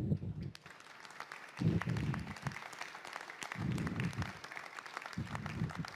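An audience applauding, a dense patter of many hands clapping, with a deep booming pulse beneath it about every two seconds.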